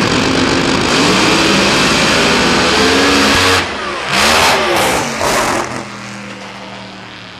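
Drag racing engines at full throttle, loud and steady, cutting off about three and a half seconds in. Two more loud bursts follow as a car runs past with its engine pitch sweeping, and the sound then falls away to a low steady drone.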